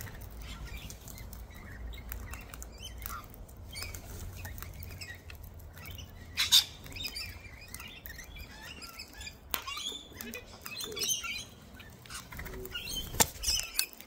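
Wild sulphur-crested cockatoos and rainbow lorikeets feeding on seed: many quick beak clicks and crunches, wings flapping, and scattered short chirps. One louder squawk about six and a half seconds in and a sharp click near the end.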